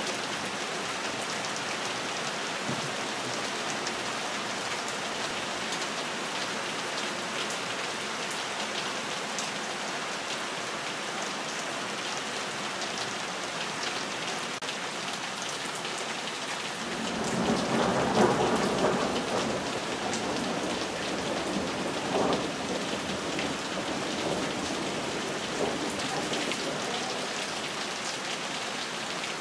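Steady rain falling on trees and leaves, an even hiss with small drop ticks. About seventeen seconds in, a louder, fuller rushing swell builds and fades over a few seconds, with a smaller one a couple of seconds later.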